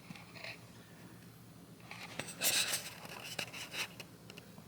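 Faint scraping and rustling as a sandwich is handled, loudest about two and a half seconds in, with a few smaller rustles after.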